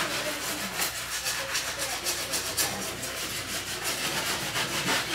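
A paper towel being rubbed hard back and forth against the painted metal side panel of a refrigerator, a quick run of scrubbing strokes, about three a second, to clean off marks.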